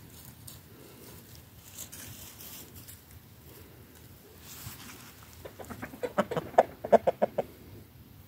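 Chickens clucking: a quick run of about a dozen short clucks starting about five and a half seconds in and lasting about two seconds.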